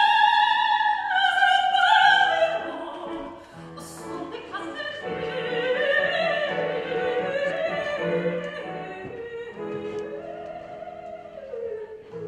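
Operatic singing: a classically trained voice holds long, high notes that waver and slide between pitches, over a soft instrumental accompaniment. The voice drops lower after a brief pause about three seconds in.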